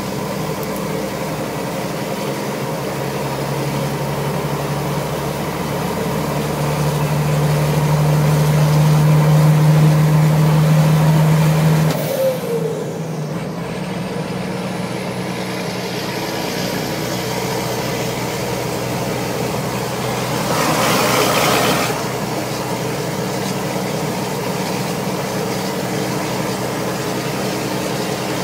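Turbocharged truck engine running, with a turbo whistle (the 'turbina cantando'). Its revs are held up for several seconds, then drop suddenly about twelve seconds in. A short hiss comes about twenty seconds in.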